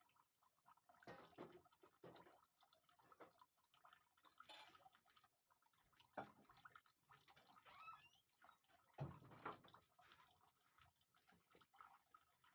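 Near silence: faint room tone with scattered soft clicks and rustles.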